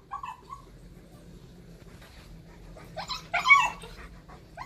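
Siberian husky puppy whining: one short whine near the start, then a louder, higher crying whine about three seconds in.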